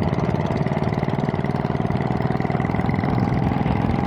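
Small vehicle engine running steadily with a fast, even pulse, heard from on board the moving vehicle, with a thin steady high whine over it.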